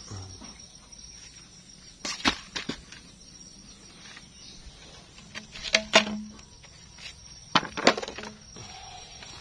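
A few sharp knocks and cracks, about two seconds in, twice around six seconds and twice near eight seconds, from handling and walking among dry leaves, a cut banana stem and broken roof tiles on garden ground.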